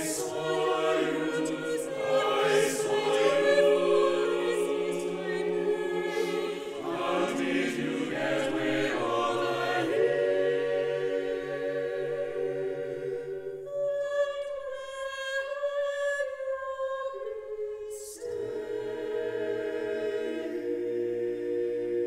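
Mixed chamber choir singing a cappella in sustained chords. For a few seconds after the middle the low voices drop out and the upper voices sing alone, then the full choir comes back in near the end.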